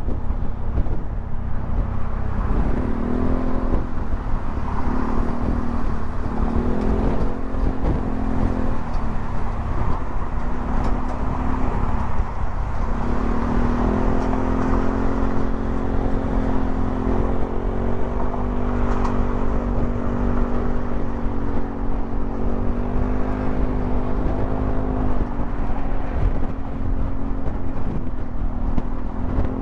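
Yamaha XMAX 300 scooter's single-cylinder engine running at road speed, with heavy wind rumble on the microphone. The engine hum comes and goes over the first half and holds steady from about halfway, rising and falling slightly in pitch.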